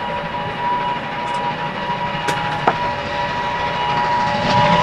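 Steam locomotive approaching, a long steady whistle note held throughout and its rumble growing louder near the end. A few sharp clicks in the middle.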